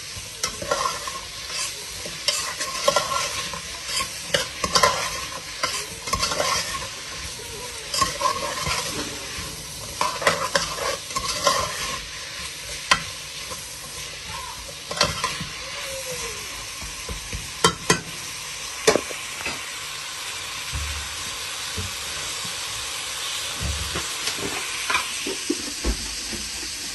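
Chopped onions and garlic frying in hot oil, a steady sizzle, with a spoon stirring and scraping against the pan in frequent clicks. The stirring thins out about two-thirds of the way in, leaving mostly the sizzle.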